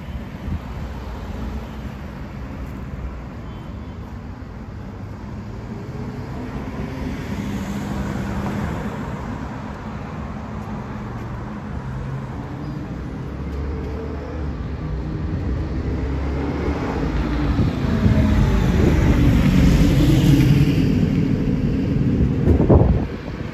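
Road traffic: a steady rumble of passing vehicles that builds, is loudest about three-quarters of the way through as a vehicle passes close, and drops sharply just before the end.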